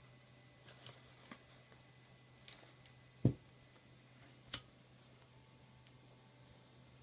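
Handling noise from working a backpack and its paracord handle: a few light, sharp clicks and one louder dull thump about three seconds in, over a faint steady hum.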